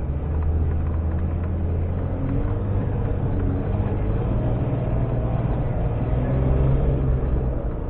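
Off-road vehicle's engine running steadily at low revs while driving along a forest trail, heard from inside the cab; it grows a little louder near the end.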